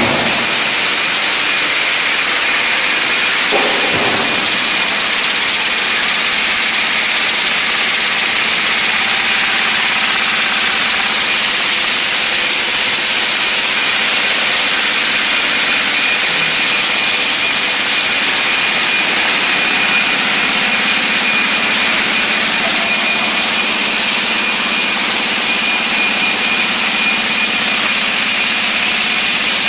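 Steady machinery noise of a shellfish processing line: conveyors and a vibratory feeder motor running, with a strong high hiss and a thin steady whine. A brief knock comes about four seconds in.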